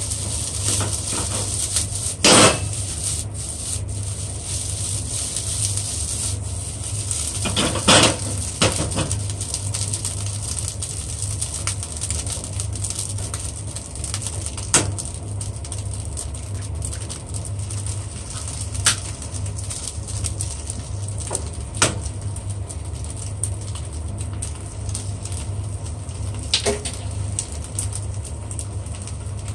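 Rice frying in a pan with a steady sizzle as it is stirred with a silicone spatula. Several sharp knocks cut through it: the spatula against the pan, and later eggs being cracked on the pan before they go into the rice.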